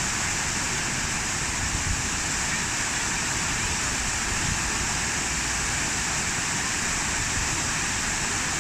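Falling water from a park water feature rushing steadily, an even unbroken hiss.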